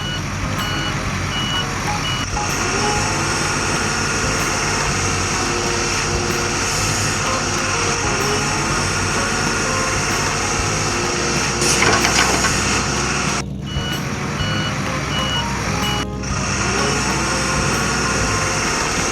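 Truck engine running steadily with reversing beeps in two runs of evenly spaced high beeps, one at the start and another about two-thirds of the way through. A short hiss about twelve seconds in is the loudest moment.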